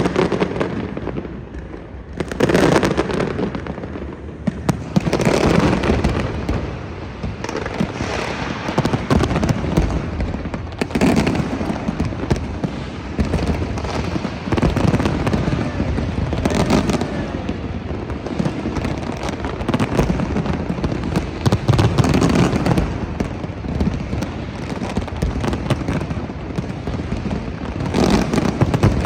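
Large fireworks display: shells bursting with deep booms every few seconds, and continuous crackling in between.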